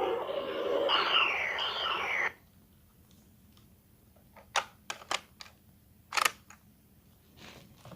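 Buzz Lightyear talking action figure playing an electronic sound effect through its small built-in speaker: a run of falling zapping sweeps that cuts off suddenly about two seconds in. A few sharp plastic clicks and knocks follow from the toy being handled.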